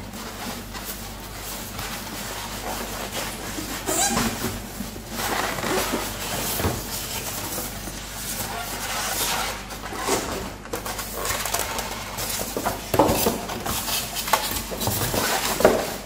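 Unboxing handling noise: plastic wrap rustling and crinkling, polystyrene foam packing rubbing, and cardboard box flaps scraping and knocking, irregular throughout with a few sharper knocks.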